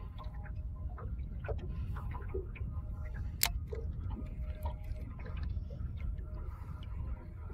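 Scattered light clicks and ticks, with one sharper click about three and a half seconds in, over a steady low rumble.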